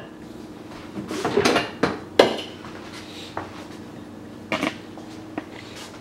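Clinks and knocks of a drip coffee maker's glass carafe being lifted off the warming plate and set down on the counter, the sharpest knock about two seconds in, over a faint steady hum.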